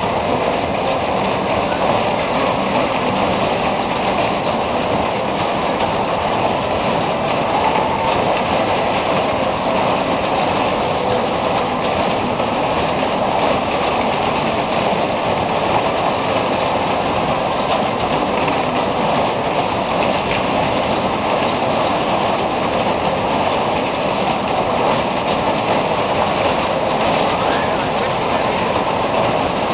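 Over-70-year-old fairground Skid ride running at full speed: a steady, loud rumble and clatter of its cars and platform going round, with no let-up.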